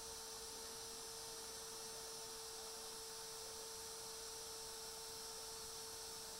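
Handheld DeWalt compact router running at a steady high speed while carving detail freehand into a wooden sign: a constant motor whine over a light hiss.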